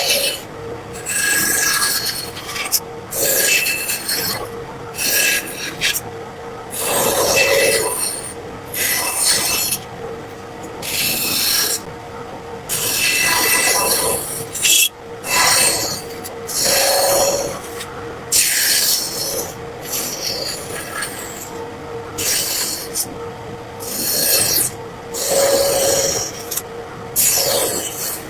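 A hand tool scraping and rasping across wood in repeated strokes, roughly one every second or two, some of them with a squeaky edge.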